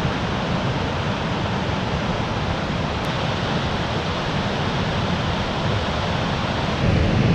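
Steady rush of a fast-flowing river running white over rocks, an even noise with no change in level.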